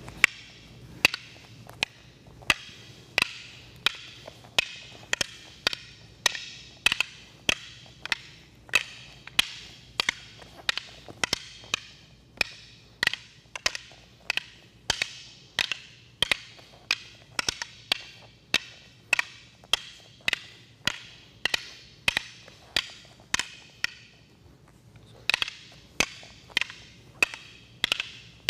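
Rattan sticks clacking against one another in a double-stick five-count Sumbrada flow drill, as strikes are fed and blocked: a steady rhythm of sharp wooden clacks, about two a second, with a short break near the end before it picks up again.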